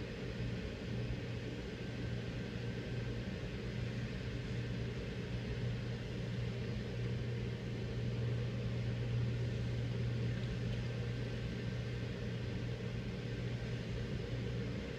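Steady low hum of an idling car, heard from inside the cabin, with a faint even hiss over it.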